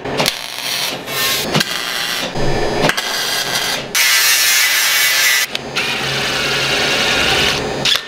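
Metalworking sounds cut together with abrupt changes: MIG welding on aluminium at the start, then an angle grinder with a cut-off disc cutting perforated metal sheet, running as a steady harsh hiss through most of the second half.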